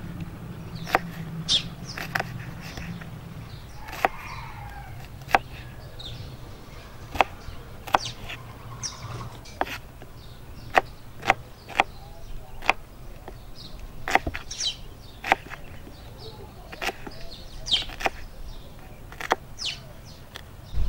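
Large kitchen knife chopping onion on a wooden cutting board: irregular sharp knocks of the blade hitting the board, about one or two a second. Birds chirp now and then behind it.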